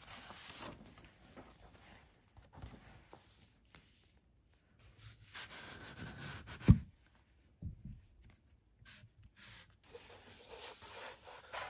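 Paper and plastic packaging rustling in uneven spells as a mailing envelope, a cardboard mailing tube and a plastic sleeve are handled and a rolled paper sheet is unrolled. A single sharp low thump comes near the middle and is the loudest sound.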